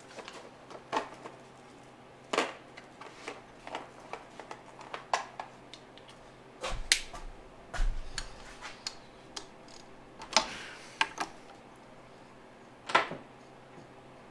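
Hand tools and metal engine parts clinking and knocking during engine teardown: a string of irregular sharp clicks and clanks, with a brief low rumble around seven seconds in.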